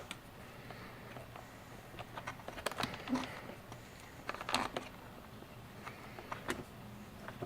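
Small clicks and light metallic rattles of a nut being started by hand on a battery terminal bolt holding wire eyelets, in a few short clusters.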